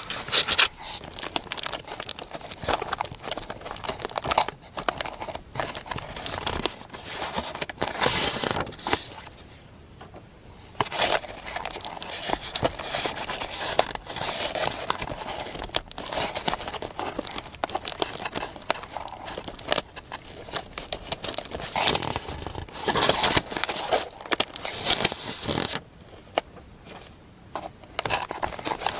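Close-up paper handling: irregular rustling, crinkling and tearing of paper, with short pauses about ten seconds in and near the end.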